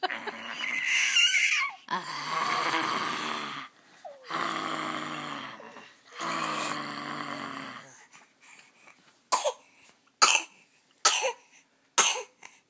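A baby making raspy, growling 'zombie noises' from the throat: four long hoarse growls, then several short, sharp ones about a second apart.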